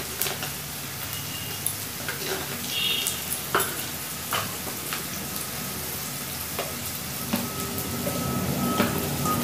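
Sliced onions and freshly added ground spices and garlic paste sizzling steadily in hot oil in a steel kadai, with a few sharp clicks of the metal spatula against the pan.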